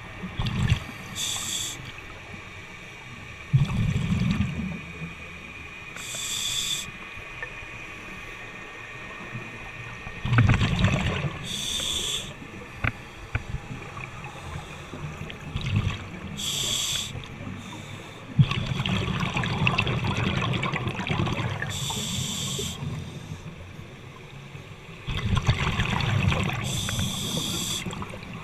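Scuba diver breathing underwater through a regulator: a short hiss of inhalation about every five seconds, alternating with rumbling bursts of exhaled bubbles.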